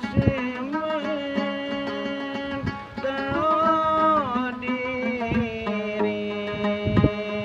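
A man singing long, wavering held notes in a folk style to his own plucked gambus lute, with a few sharp strokes on the strings.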